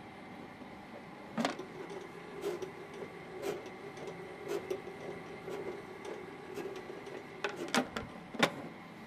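Rotary tablet press running: a steady machine hum with a light click about once a second, and a few sharper knocks near the end.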